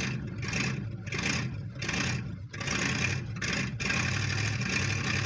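1970 Chevy Impala's 350 V8 running and being revved in repeated surges as the car tries to pull forward, hung up on a snow berm and not moving.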